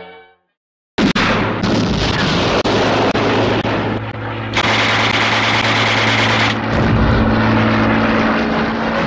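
Battle sound effects of an air attack: a steady aircraft engine drone with gunfire and blasts. It cuts in suddenly about a second in, after brass music fades out.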